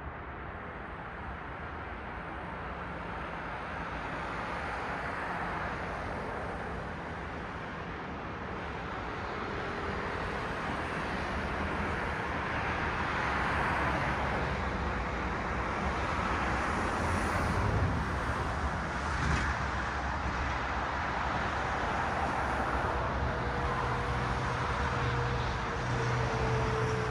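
City street traffic: cars passing with steady tyre and engine noise that slowly grows louder and swells twice, with a low engine hum near the end.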